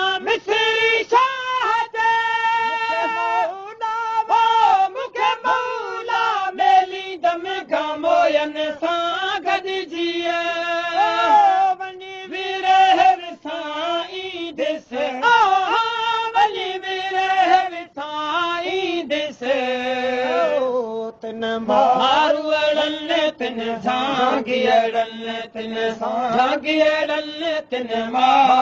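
Sindhi waai folk music: a melodic line of long held and gliding notes, crossed by short sharp strokes, with no clear sung words.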